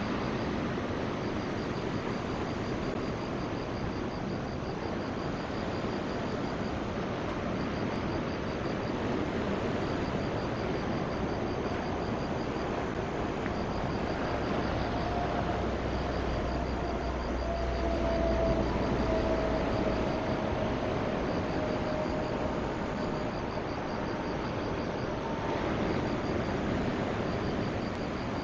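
Steady outdoor noise, with a distant engine droning through the middle whose faint tone slowly falls in pitch before fading.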